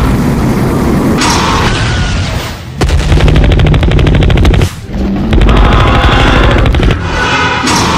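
Cartoon battle sound effects: a steady rushing blast, then rapid minigun fire starting about three seconds in, broken briefly near the middle and then resuming.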